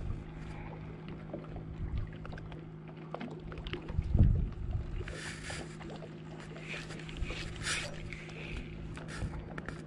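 Steady low engine hum, like a boat idling in the harbour, with a loud low thump from wind or handling on the microphone about four seconds in and a few short hisses.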